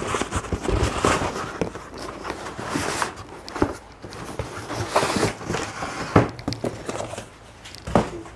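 Cardboard boxes rustling and scraping as a shoebox-style boot box is slid out of a cardboard shipping box, with scattered knocks and a sharper thump near the end as a box is set down on a wooden table.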